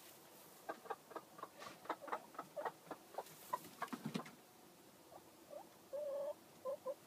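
Hen in a straw nest box, rustling and pecking at the straw as she tucks it around herself over her eggs: a quick run of small dry crackles and ticks for about four seconds. Then a short, low cluck about six seconds in and two brief clucks just after.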